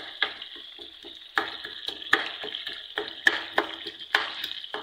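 Chicken frying in oil in a pot, sizzling steadily, while a wooden spoon scrapes and knocks against the pot about twice a second as the cooked chicken is broken into shreds.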